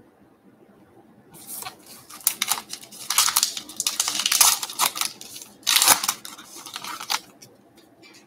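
Trading card pack wrapper being torn open and crinkled, a run of rustling, tearing bursts from about a second and a half in until about seven seconds.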